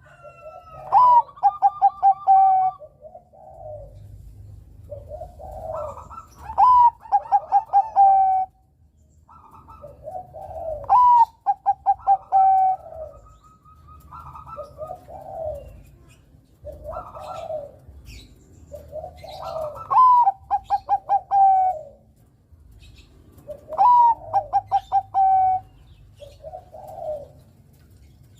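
Perkutut Bangkok (zebra dove) cooing: repeated song phrases, each a rising note followed by a quick run of pulsed coos, coming every four seconds or so.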